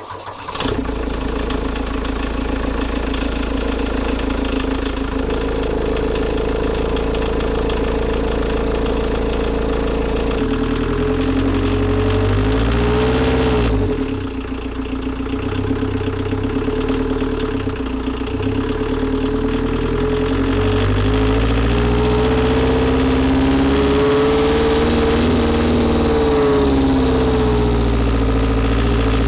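VW Rabbit's 1.6-litre turbodiesel four-cylinder heard right at the air intake. It idles steadily at first, then runs under way, its pitch dipping and recovering about halfway through and rising and falling again near the end.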